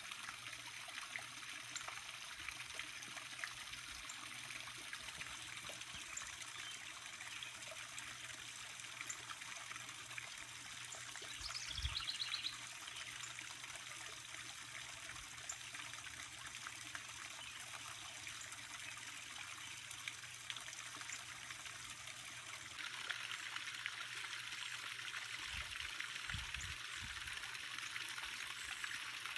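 Faint, steady outdoor background hiss, with a short burst of high bird chirps about twelve seconds in. The hiss turns brighter and a little louder about three quarters of the way through.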